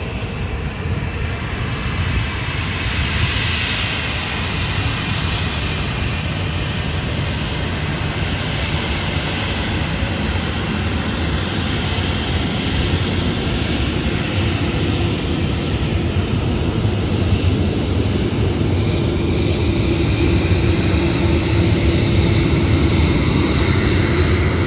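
Jet engines of a Southwest Airlines Boeing 737 on the runway: a steady rushing jet noise that grows gradually louder as the plane draws nearer, with a low steady hum joining in over the last third.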